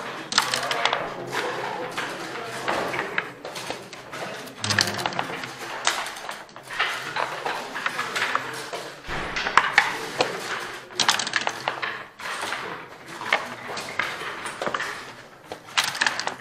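Backgammon play: dice thrown onto the board and checkers clacking as they are moved. Irregular sharp clicks and knocks come singly and in quick clusters.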